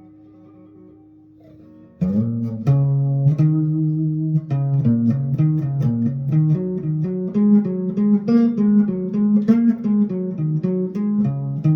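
Instrumental guitar music. A held chord rings and fades quietly, then about two seconds in a steady run of picked single notes starts up over low bass notes.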